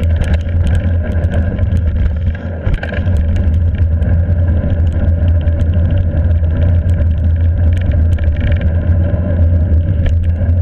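Wind buffeting the microphone of a camera on a fast-moving hardtail mountain bike, a heavy steady rumble. Frequent sharp clicks and rattles come from the bike over the rough trail.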